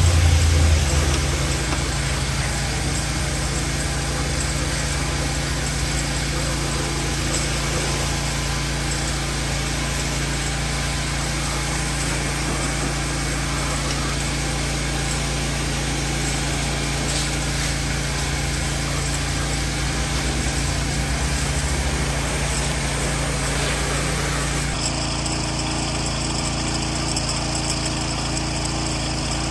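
Pressure washer's engine running steadily while its wand sprays water against vinyl siding and a garage door. There is a brief low thump in the first second, and near the end the tone of the noise shifts abruptly.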